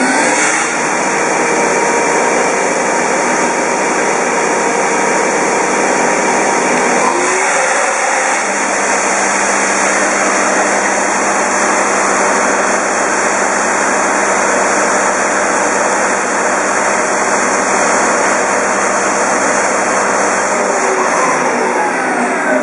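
Haas HL-2 CNC lathe spindle and 3-jaw chuck at full speed, about 4000 rpm, a loud steady whine. Near the end the spindle is commanded to stop, and the whine falls in pitch as it slows down.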